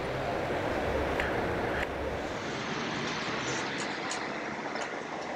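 Outdoor city ambience: a steady wash of distant traffic noise, with a low rumble that drops away about two seconds in and a few faint ticks later on.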